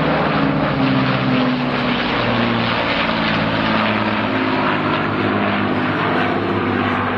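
Avro Lancaster bomber's four Rolls-Royce Merlin V12 piston engines, together with a Spitfire's engine, running in a low flypast overhead: a steady multi-engine propeller drone whose notes shift slowly in pitch as the aircraft pass and bank away.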